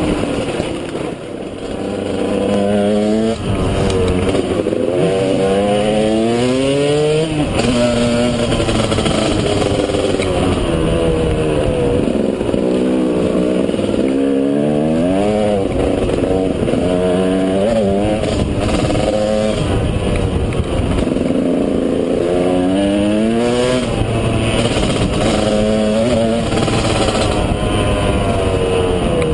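KTM 200 EXC two-stroke single-cylinder enduro engine being ridden, revving up again and again in rising sweeps that drop back in pitch at each gear change, between stretches of steadier running.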